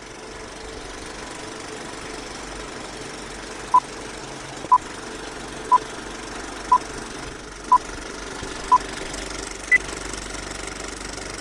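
Vintage film-leader countdown effect: a film projector's steady rattle under film crackle, with a short beep once a second. Six beeps sound at the same pitch, then a seventh, higher beep marks the end of the countdown.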